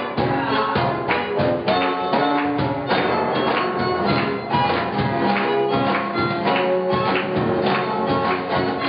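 Live ensemble music in a Latin, tango-like style: bandoneon, guitar and saxophone playing over a steady beat of hand percussion on cajón and cymbals.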